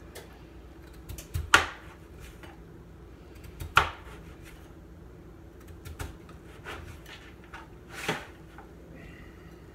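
Kitchen knife chopping on a cutting board: sharp, irregular knocks a second or two apart, the loudest about one and a half seconds in.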